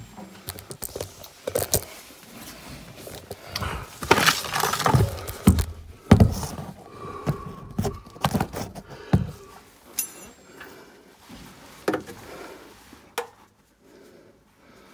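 Irregular clatter of tools and gear being handled: short metal clinks, knocks and thuds at uneven intervals, fading off near the end.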